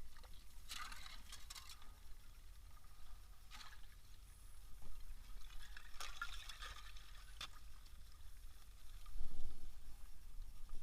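Water pouring and trickling in irregular spurts, as something is being filled with water, over a steady low rumble.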